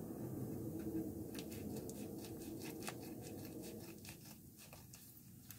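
Scissors cutting open a plastic poly mailer envelope, the plastic crinkling and clicking in a quick run of small crackles that thin out after about four seconds.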